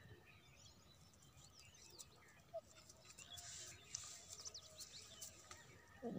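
Near silence, with faint, scattered bird chirps in the background.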